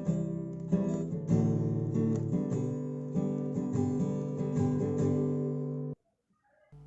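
Background music of strummed acoustic guitar. It cuts off suddenly about six seconds in, and after a brief silence quieter music starts again near the end.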